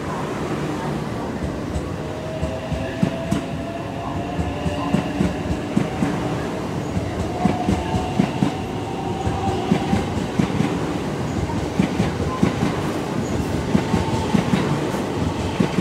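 Electric limited express train pulling out and passing close by: wheels clacking repeatedly over the rail joints, with a faint whine that rises slowly in pitch as it accelerates.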